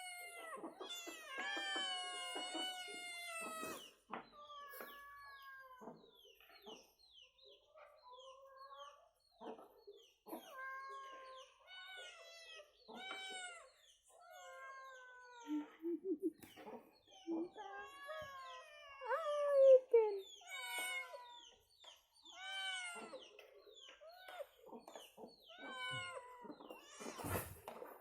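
Domestic cats meowing over and over, many short meows that rise and fall in pitch, one after another. A brief noisy clatter comes near the end.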